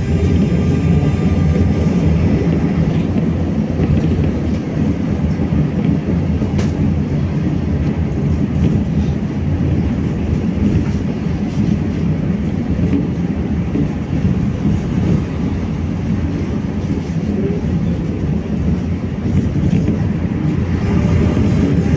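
BKM-60102 tram running between stops, heard from on board: a steady rumble of the wheels on the rails and the running gear, with a single click about seven seconds in.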